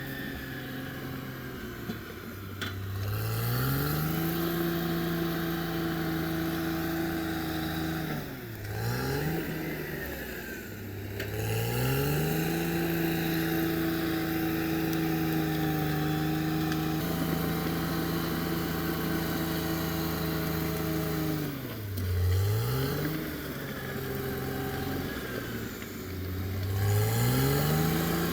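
Caterpillar D6R XL bulldozer's diesel engine rising from idle to high revs and holding there under working throttle, dropping back briefly twice and revving up again each time.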